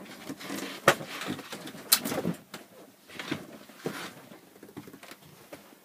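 Panels and upholstery of a campervan's rock 'n' roll bed being handled: two sharp knocks about one and two seconds in, then softer bumps and rustles fading toward the end.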